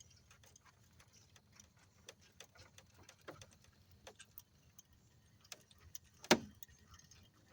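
Fishing reel ticking irregularly as a hooked fish is reeled in, with one sharp louder knock about six seconds in.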